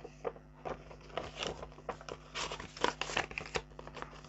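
Paper leaflet rustling and crinkling as it is handled, folded and put down, in a string of short, irregular rustles.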